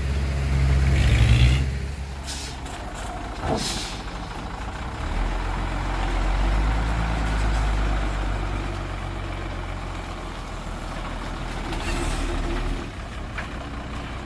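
Heavy diesel earthmoving machinery running at a work site: a steady low engine drone that grows heavier from about 5 s to nearly 13 s in, with two short hisses about 2 and 3.5 seconds in.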